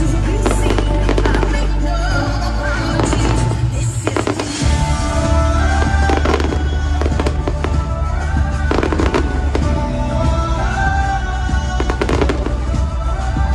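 Aerial firework shells going off in a string of bangs and crackles over loud music with a deep bass line.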